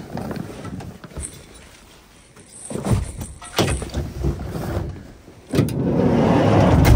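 Gear being handled: a dry bag and other bags rustling and bumping, several knocks, then a louder stretch of rustling and scuffing near the end.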